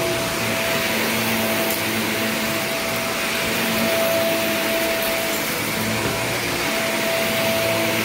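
Bagless upright vacuum cleaner running steadily while it is pushed back and forth over carpet: a constant motor hum with the hiss of its suction.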